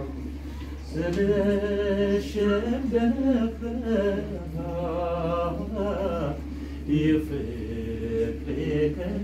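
A man singing unaccompanied in a chant-like style, holding long notes that bend and slide, with short breaks between phrases.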